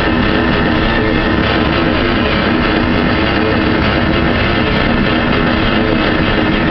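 Rock music with guitar playing steadily and loudly.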